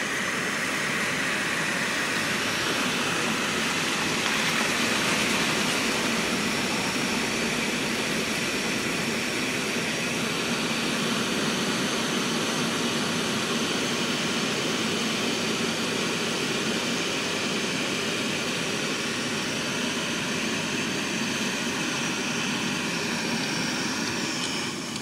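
Jetboil gas canister stove burning at full flame: a steady rushing roar that falls away near the end.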